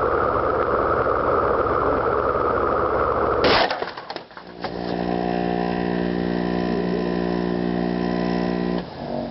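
Souped-up ceiling fans running with a loud steady whir, then a sharp crash about three and a half seconds in as a dropped old scanner strikes them. The crash is followed by a steady pitched hum that lasts several seconds.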